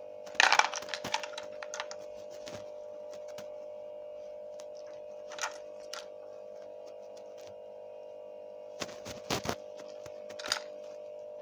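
A steady humming tone throughout, with a quick run of clicks and taps about half a second in, a couple of single clicks around the middle, and another short run of clicks near the end.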